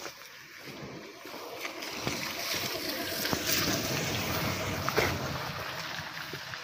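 A vehicle driving through water on a flooded road: tyre hiss and splashing build up, are loudest midway and then fade as it passes.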